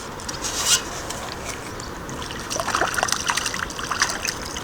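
Water splashing and lapping close by, in short irregular splashes over a steady rushing noise.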